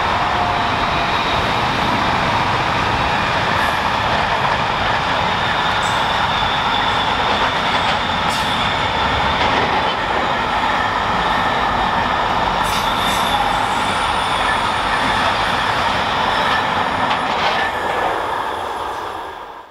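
Long intermodal freight train of container wagons rolling past at speed: a steady, loud rolling noise with thin high squealing tones from the wheels and the odd click. It dies away quickly near the end as the last wagons go by.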